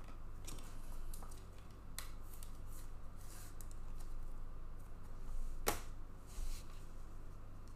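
Trading cards being handled: light rustling and sliding, with two sharp clicks, the second one louder.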